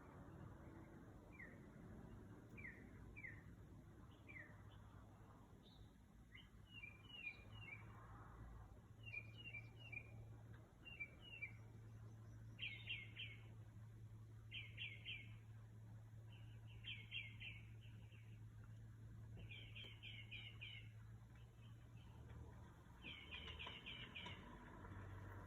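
A bird singing faintly in varied phrases: a few single sliding notes at first, then short bursts of rapid repeated notes, each about a second long, every two or three seconds.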